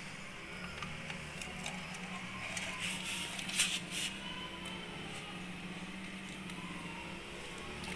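Zontes 310T motorcycle engine idling with a steady hum. About three to four seconds in, a plastic oil bottle and its cap are handled with a brief crinkly rustle.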